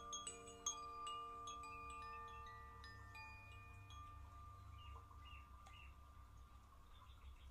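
Sufi wind chime, a cylindrical chime with a hanging clapper, swung by hand: a few bright strikes in the first couple of seconds, then its overlapping ringing tones slowly fade away.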